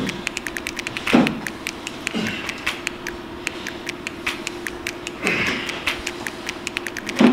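Rapid, even ticking, about four to five ticks a second, like a stopwatch or timer sound effect, over a low steady hum. A few sweeping sounds fall in pitch over it, about a second in, two seconds in, past the five-second mark and near the end.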